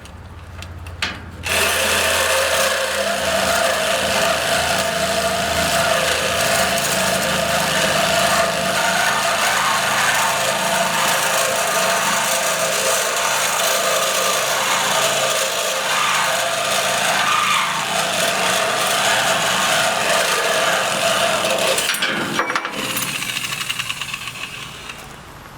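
Power saw with a Lenox blade cutting through welded steel pipe, a steady cutting sound that starts about a second and a half in, breaks off briefly near the end, then resumes and tapers off.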